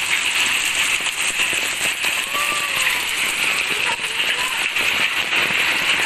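Heavy rain and hail pelting down: a dense, steady hiss thick with small clicks of hailstones striking.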